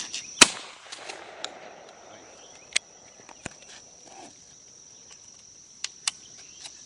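A single shotgun shot at a thrown clay target about half a second in, with a short echo trailing off, followed by a few light clicks. A steady high insect buzz runs underneath.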